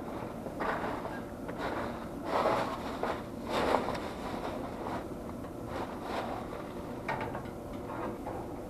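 Irregular clunks and rattles of parts and tools being handled, loudest about two and a half and three and a half seconds in, over a steady low background hum.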